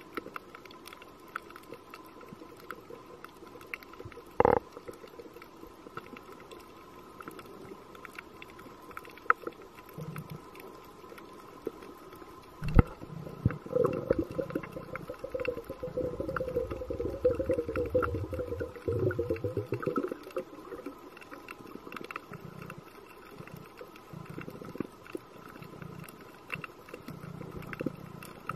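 Underwater sound through a camera housing: scattered faint clicks over a faint steady whine, with a sharp knock twice. About halfway through, a scuba diver's exhaled breath bubbles out of the regulator for several seconds, followed by weaker bubbling.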